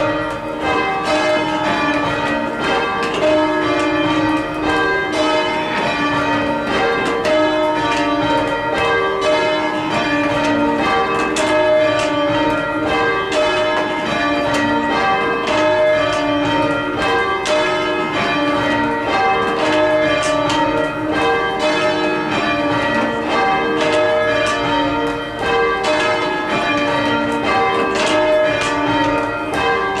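Carlisle Cathedral's tower bells rung full circle from ropes in English change-ringing style: a continuous, even stream of bell strikes, one bell after another, heard from the ringing room below the bells.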